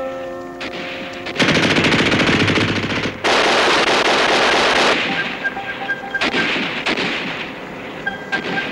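Two loud bursts of machine-gun fire: a rapid rattle starting about a second and a half in and lasting nearly two seconds, then a second loud burst just after three seconds, fading to scattered lower-level gunfire.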